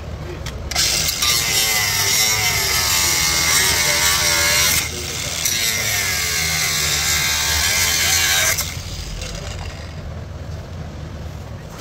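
High-speed rotary tool cutting plastic, its motor pitch sagging and recovering under load. The cutting runs in two long passes with a short break about five seconds in, over a steady low hum.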